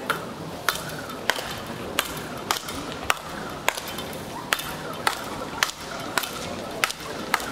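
Speedball rally: solid paddle rackets striking the tethered ball back and forth, a dozen or so sharp cracks at an even pace of a little under two a second.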